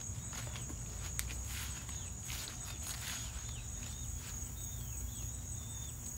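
A steady high insect drone, like crickets in summer vegetation, with footsteps and rustling from walking. From about two seconds in, a bird gives a string of short, repeated chirps.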